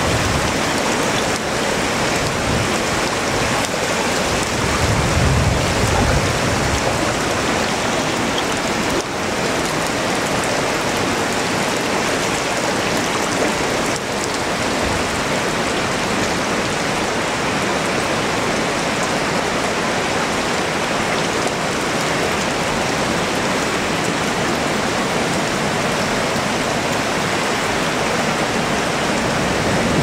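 A river in spate after heavy rain: muddy floodwater rushing past in a steady, dense wash of water noise, with a brief low rumble about five seconds in.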